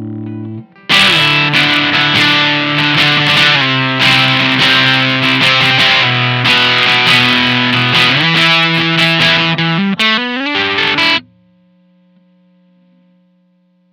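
Electric guitar played through a Maestro Fuzz Tone FZ-M fuzz pedal at low gain, a fuzzed riff of notes and chord changes. It starts after a held chord dies away about a second in and stops abruptly near the end, leaving a faint hum.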